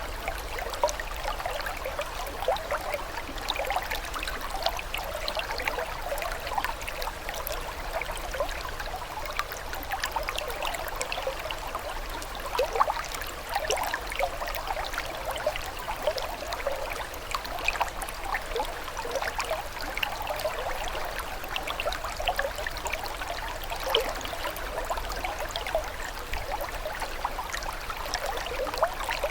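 Running water, trickling steadily with many small bubbling splashes.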